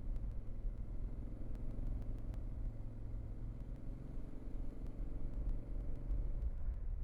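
Motor vehicle running steadily: a continuous low engine rumble with a faint even hum and no marked rise or fall in pitch.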